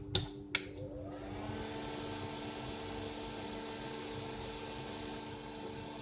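Medel DC motor drive powering up: two sharp clicks, then a whir that rises in pitch over about a second and settles into a steady running hum.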